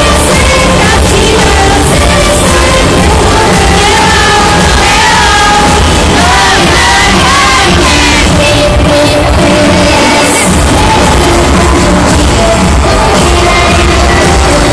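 Live pop song over loud concert amplification with a heavy steady beat and a woman's sung vocal line, the audience shouting and cheering along.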